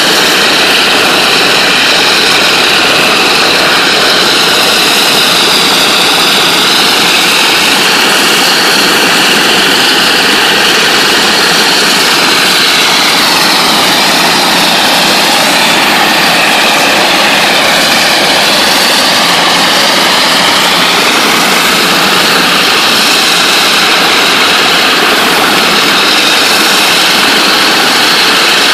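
NLB Spin Jet rotary water-jetting head blasting a concrete floor at 40,000 psi: a loud, steady hiss, with whining tones that drift slowly up and down in pitch.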